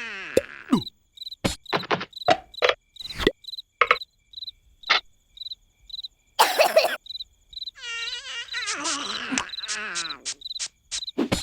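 Cartoon soundtrack with a cricket chirping, short high chirps about twice a second, over scattered clicks and thuds and a falling glide at the start. From about eight seconds in, a cartoon character's wordless vocalizing joins in.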